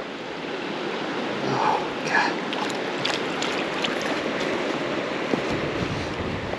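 South Platte River flowing: a steady rush of moving water, with a few faint ticks over it.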